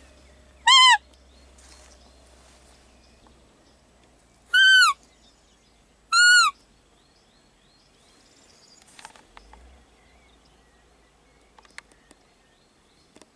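Roe deer call blown by hand, three short squeaky notes imitating a doe's fiep to lure a roe buck in the rut. Each note rises and falls in pitch; the first, about a second in, is lower than the two close together around five and six seconds in.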